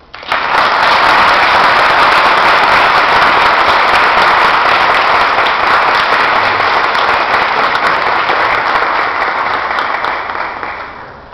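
Loud audience applause from a hall full of people clapping, breaking out suddenly right at the start, holding steady, and dying away near the end.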